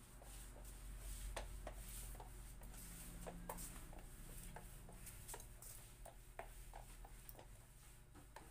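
Faint scattered light clicks and soft scrapes, a few a second at most, over a low steady hum.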